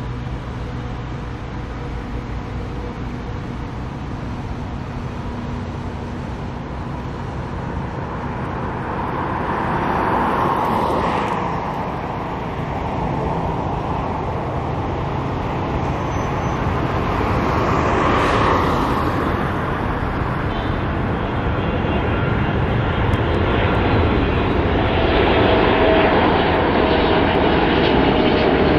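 Jet engines of an Emirates Boeing 777-300 on final approach: a steady rumble that grows louder as the airliner comes nearer, turning into a broad roar in the last third. Two brief louder swells come and go along the way, about a third and about two thirds through.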